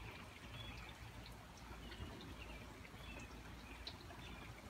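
Faint birds chirping in short, scattered calls, over a low steady rumble.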